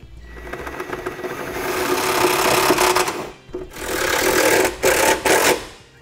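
Power drill with a 3/8 nut driver bit running self-tapping screws into the truck's sheet-metal body, in two runs: a first of about three seconds that grows louder, then a short pause and a second of about two seconds.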